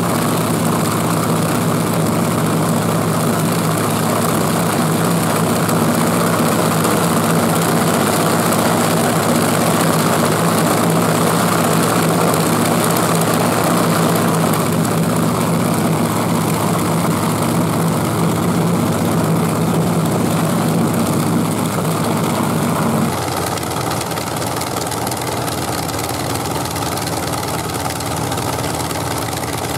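Wright nine-cylinder radial aero engine running steadily on a test stand with its propeller turning. About 23 seconds in, the sound drops suddenly to a quieter, lower running.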